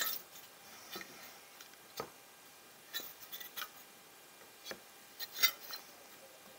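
Diamond sharpening plates being handled and set down on a wooden board: scattered light clicks and taps with brief scrapes.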